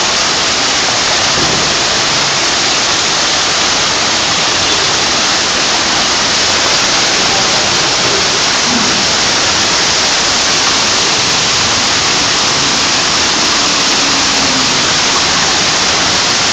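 Heavy rain mixed with hail pouring down in a dense, steady hiss, with water rushing through the flooded street.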